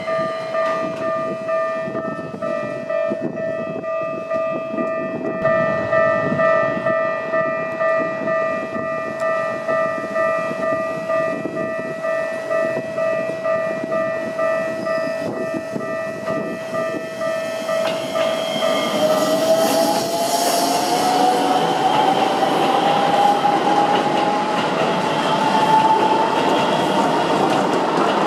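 A Japanese railway-crossing warning bell ringing in a fast steady rhythm over the rumble and clatter of train wheels on the rails. In the last third, an approaching electric commuter train adds a whine that rises slowly in pitch as it runs past the crossing.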